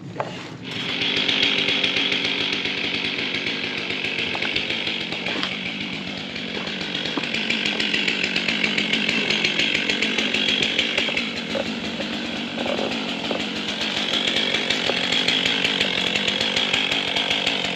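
Chainsaw starts up just under a second in and runs steadily, cutting into a white oak log.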